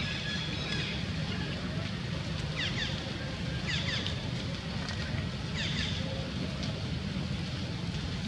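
Steady low outdoor rumble of background noise, with three short bursts of high, quick, downward-sweeping bird chirps in the middle.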